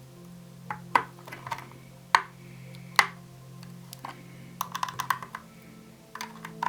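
Multi-tool pliers clicking and clinking against the metal nut of a bass guitar's output jack as they grip and work it: a few single sharp clicks, then a quick run of small clicks.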